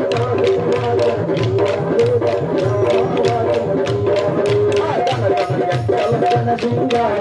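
Kolata stick-dance music: a sung melody over a repeating drum beat, with the dancers' wooden sticks clacking together in a steady rhythm.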